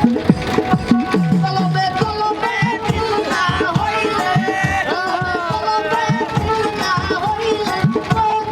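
Upbeat Bangla dance music: a rhythm of hand-drum strokes, some of the low ones bending in pitch, under a wavering melody.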